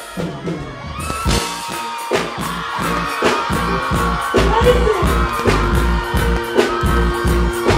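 Live reggae-dancehall band music at a stage show, with a steady drum beat of about two hits a second, deep bass and held keyboard or vocal notes, coming in fuller about a second in.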